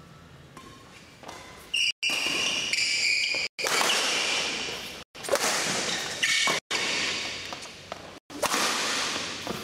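Badminton rally: rackets hitting the shuttlecock about every second and a half, each hit ringing on in a large hall, with shoes squeaking on the court floor in between.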